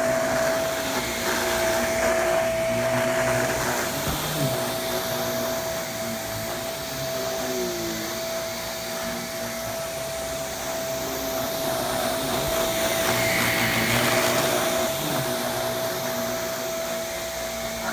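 Original Shark Navigator upright vacuum cleaner running on carpet: a steady motor whine with rushing air, the level swelling and easing as it is pushed along, and a brief break in the whine about four seconds in. Its suction is strong enough that the head grips the carpet and is hard to push.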